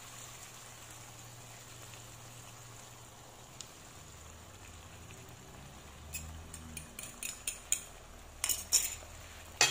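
Faint sizzling of a pan of zucchini in tomato sauce as beaten eggs are poured in. From about six seconds in, a quick series of sharp clinks as the ceramic bowl is emptied over the pan, the loudest near the end.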